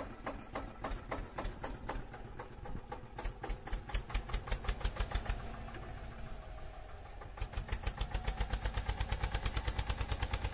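Tractor engine chugging at a steady, rapid beat, louder from about seven seconds in.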